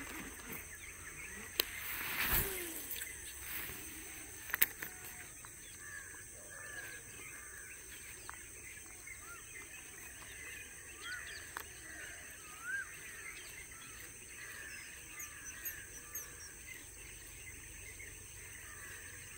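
Quiet countryside ambience at dawn: many small birds chirping over a steady high-pitched drone. A few sharp clicks and knocks come in the first five seconds.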